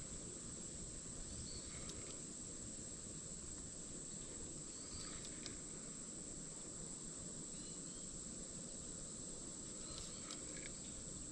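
Steady high-pitched drone of insects, unchanging throughout, over a low steady rumble.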